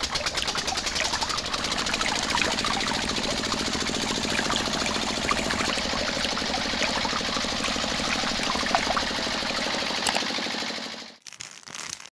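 A small motor running steadily with a fast, even chugging, then cutting off suddenly about eleven seconds in.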